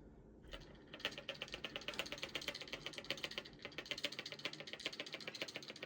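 Rapid rattling knock in the water pipes, about ten sharp taps a second, starting about half a second in. It is the sign of a faulty Delta shower pressure-balance valve cartridge chattering in the line.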